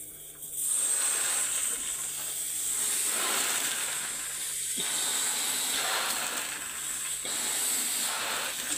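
A clear confetti balloon being blown up by mouth: long, hard breaths of air blown into it, with brief pauses about half a second in, near five seconds and near seven seconds where she breathes in.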